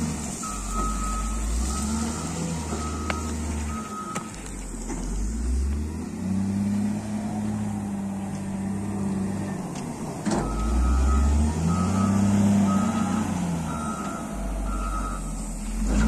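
Caterpillar 950 wheel loader's diesel engine running and changing pitch as it works. Its back-up alarm beeps evenly twice: once in the first four seconds and again from about ten seconds, as it reverses.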